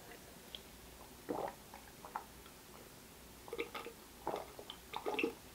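A person drinking from a tall cup: faint gulps and swallows, about five or six spread a second or so apart.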